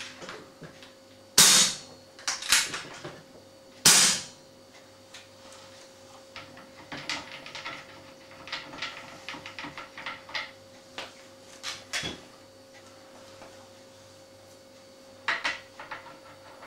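Two shots from a .177 Webley FX2000 air rifle fitted with a small, light aluminium silencer, each a sharp report, about two and a half seconds apart. Clicks and light metallic handling follow as the silencer is worked off the barrel.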